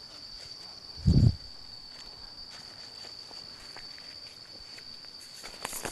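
Steady high-pitched insect chirring from the forest, with one dull low thump about a second in. Light crackles near the end from steps on dry leaf litter.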